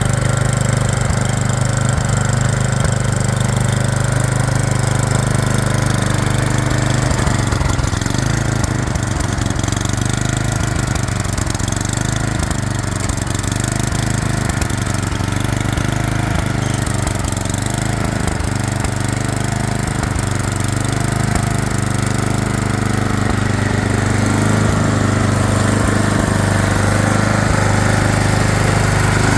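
The small engine of a 2003 Murray Blizzard 27-inch self-propelled snowblower, running steadily.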